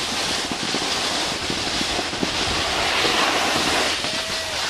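Steady rushing hiss of wind on the microphone mixed with a snowboard sliding and scraping over packed snow.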